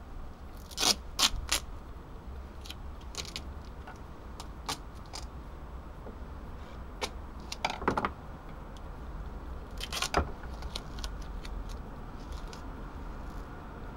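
Silver duct tape being pulled off and handled in short rips, with small crackles between; the loudest rips come in three quick ones about a second in and in groups near eight and ten seconds.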